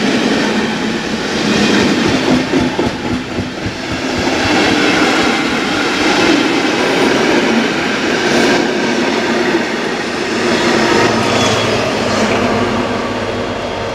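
Passenger coaches rolling past close by, their wheels clattering over the rail joints. Near the end a low steady hum joins as the trailing DR class 118 diesel locomotive passes.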